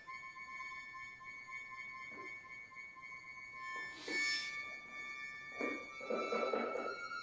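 Accordion holding soft, steady high notes. About four seconds in there is a short breathy accent, and from about five and a half seconds a new held note sounds over a rough, flickering lower texture.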